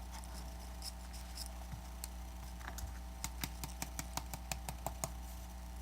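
Small hand tool clicking and tapping against an iPad Air 2 frame while picking off leftover adhesive, a quick run of sharp ticks in the second half over a steady low hum.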